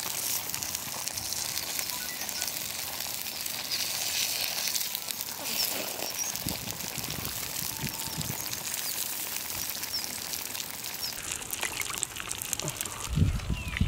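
Water boiling in a wok over a wood fire, a steady hiss, while a rat carcass is dunked and scraped in it to scald off the fur; near the end there is louder splashing and handling in a pan of water. A few faint bird chirps.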